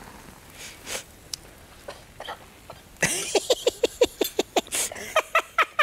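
A person coughing in a rapid fit from about three seconds in, short repeated coughs about four or five a second, set off by the spice in the dish. Before that, faint scraping of a spatula stirring in a frying pan.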